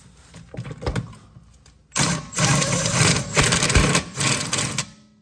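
A power wrench on a 17 mm socket spins the rear camber arm bolt out. It runs for about three seconds from about two seconds in, after a couple of light knocks as the tool is settled on the bolt.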